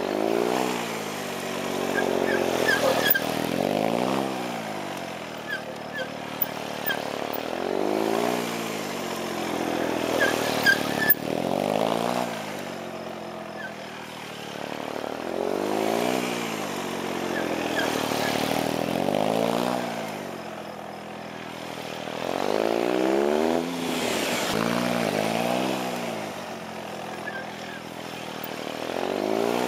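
Triumph Speed Triple's three-cylinder engine revving up and dropping back over and over, about every three to four seconds, as the motorcycle accelerates out of and slows into tight turns around a cone course.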